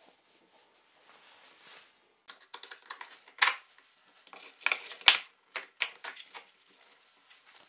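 Pine boards knocking and clattering against each other as a wooden piece is set and shifted in a wooden jig: faint rustling at first, then a string of sharp knocks, the loudest two near the middle.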